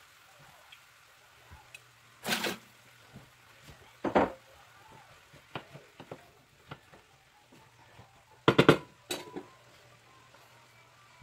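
Wooden spatula stirring diced eggplant and chicken in a frying pan: scattered knocks, scrapes and clatters of utensils against the pan, the loudest about two, four and eight and a half seconds in, over a low steady hum.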